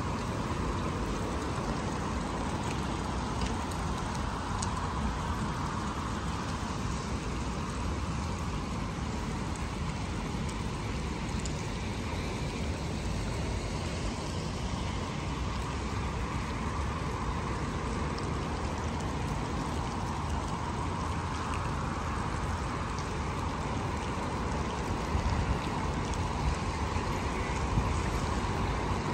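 Steady rushing-water noise with a low rumble underneath, with a few small knocks near the end.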